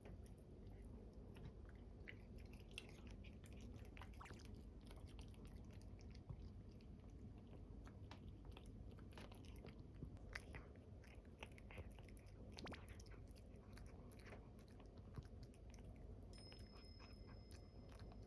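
Cat chewing and biting food: faint, irregular wet clicks and crunches. A thin, steady high tone comes in near the end.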